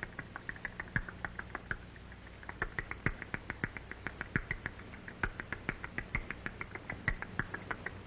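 Barn owl chicks squeaking as they beg for food: a rapid run of short, high squeaks, about six a second, with a brief pause about two seconds in.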